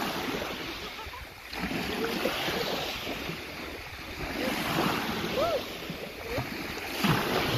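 Gentle sea waves washing over the shallows, swelling and fading every couple of seconds, with wind on the microphone.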